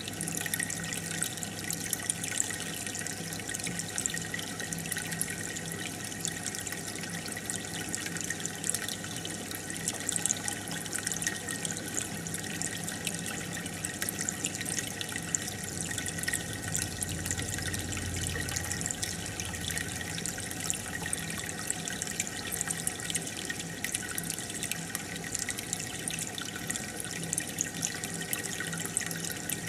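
Aquarium filter pump and air bubbles running steadily: water bubbling and trickling with many small pops, over a faint steady hum.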